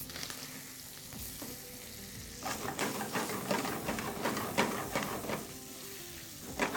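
Beef chunks sizzling as they brown in a stainless steel frying pan, with a slotted spoon stirring and scraping through them from about two and a half seconds in until about five and a half.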